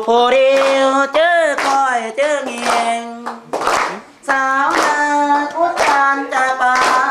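Schoolchildren singing a song together and clapping their hands along with it, with a brief pause about four seconds in.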